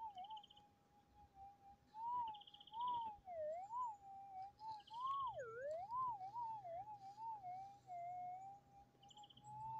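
Gold-prospecting metal detector's audio: a steady threshold tone whose pitch repeatedly wavers up and down as the coil is swept back and forth over a small gold nugget. It is a faint, small target signal.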